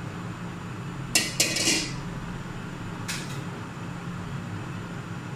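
Cookware clattering on a gas stove: a few sharp clinks with a short ringing rattle about a second in, and one more click about three seconds in, over a steady low hum.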